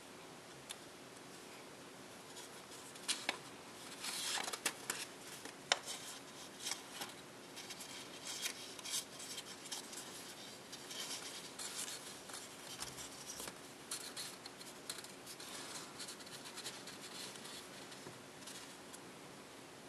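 Sheet of printed copy paper folded and creased by hand: irregular rustling and crinkling, with a cluster of sharper crackles from about three to six seconds in.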